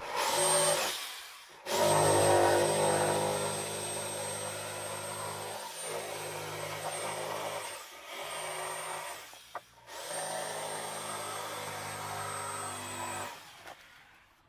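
Corded jigsaw cutting a circle out of a glued-up meranti panel. The saw runs in four stretches, starting and stopping between them, with the longest cut lasting about six seconds. It stops shortly before the end.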